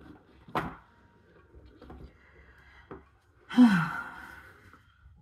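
A sharp click and a few faint taps, then about three and a half seconds in a short voiced sigh that drops in pitch.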